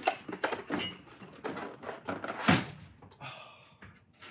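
A foamcore sorter tray loaded with metal air tools set down into a metal toolchest drawer: a run of knocks and clatters as it settles and the tools shift, the loudest thump about two and a half seconds in.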